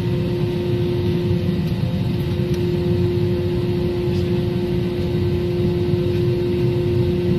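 Airliner jet engines heard from inside the passenger cabin: a steady rumble with a constant whine as the plane rolls along the ground.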